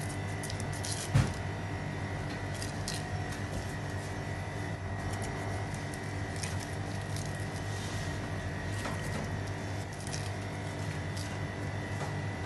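Steady low machine hum with a faint high whine, under light handling noises: soft clicks and rustles as chunks of cream cheese go into a blender jug of liquid, with one sharp knock about a second in.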